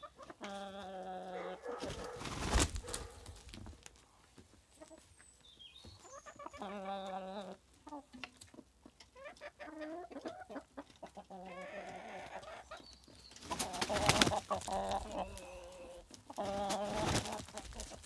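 Chickens and roosters calling: about five drawn-out calls of a second or so each, between softer clucking. Two loud noisy bursts come about two to three seconds in and about fourteen seconds in.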